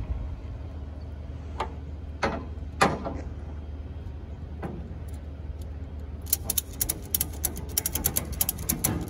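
Ratchet strap being worked over a load on a trailer. First a few separate knocks and rattles of the strap hardware, then from about six seconds in a fast run of ratchet clicks as the strap is cranked tight.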